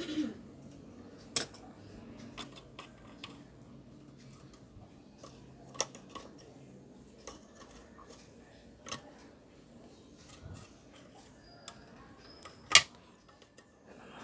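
Scattered small metal clicks and taps of pliers and a circuit board being worked inside a voltage regulator's sheet-metal case, one every second or two, the sharpest one near the end.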